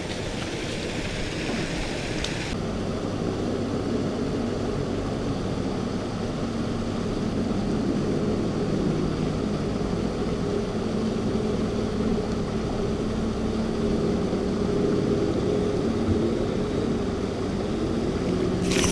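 A steady mechanical drone with a low hum and no break in it. The higher hiss drops away about two seconds in.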